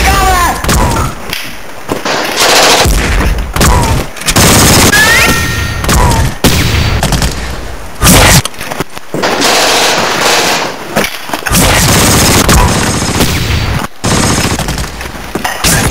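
Battle gunfire: bursts of automatic fire mixed with single rifle shots, dense and loud throughout, with a few brief shouts.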